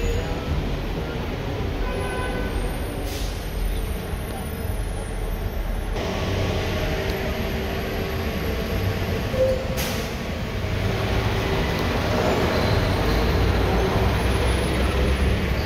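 Slow stop-and-go road traffic heard from inside a car: a steady low rumble of engines and tyres. Two brief hisses come about three and ten seconds in, and the sound grows a little louder near the end.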